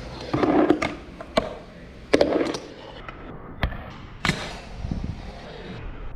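Fingerboard tricks on a hard tabletop: the tiny wheels rolling across the surface, broken by several sharp clacks of the deck snapping and landing.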